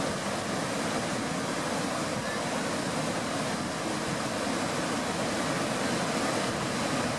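Whitewater rapids of the Merced River rushing over and between granite boulders: a loud, steady rush of water.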